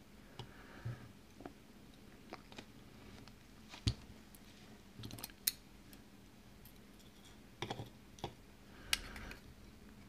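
Scattered faint clicks and taps of steel tweezers on a brass lock cylinder and on small pins set down on a plastic pin tray, the sharpest tap about four seconds in.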